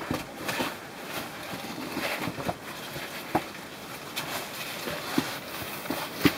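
A caver climbing through a scaffolded shaft: irregular knocks and scrapes of hands and boots on the scaffold tubes, with clothing rustle, and a few sharper knocks near the end.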